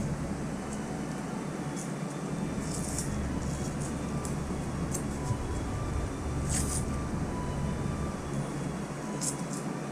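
Steady low background rumble with a handful of short crinkles and clicks from handling a small tape-wrapped microphone.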